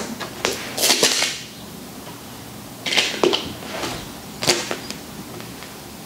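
Clear plastic sole-protector film crinkling and crackling as hands press and shift it on a sneaker's rubber sole, in short bursts about a second in, around three seconds and again around four and a half seconds.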